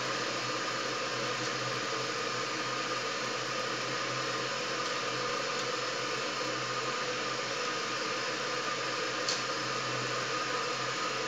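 Steady background hiss with a low hum, and a faint click about nine seconds in.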